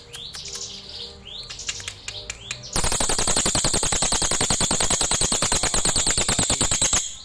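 Crested jay (cililin) calling: a few short rising whistled notes with clicks, then from about three seconds in a loud, fast rattle lasting about four seconds.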